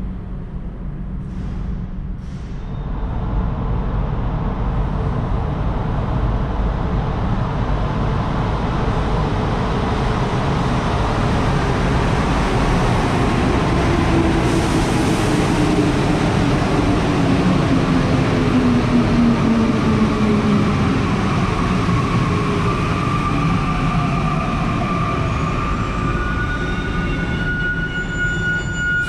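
Rubber-tyred Santiago Metro Line 1 train running: a steady rumble that swells about three seconds in. Electric motor whines glide in pitch over it, a falling one around the middle and several high steady ones near the end.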